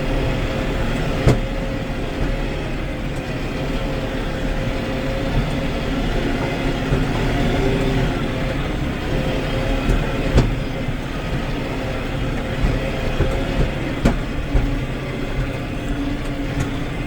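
Tractor engine running steadily under way across rough pasture, with a few sharp knocks as it jolts over the bumps.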